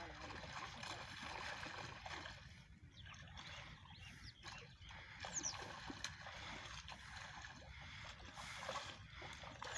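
Shallow, muddy pond water sloshing and splashing around a man's legs as he wades through it dragging a fishing net.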